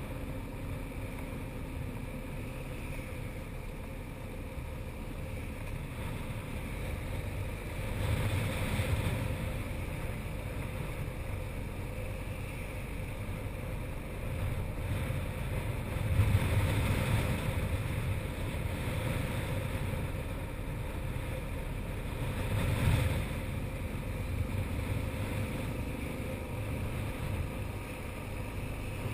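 Motorcycle ride heard from a bike-mounted action camera: steady wind rush over the microphone with the engine running underneath. The rush swells louder about three times.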